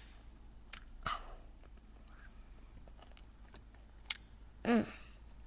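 Hard cough candy being sucked and chewed, with a few sharp clicks of the candy against the teeth. A child's brief vocal sound about a second in and again near the end.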